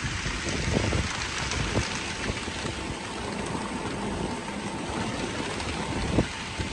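Rain falling and wind buffeting the microphone from a moving golf cart, with gusty low thumps a few times and a faint steady whine underneath.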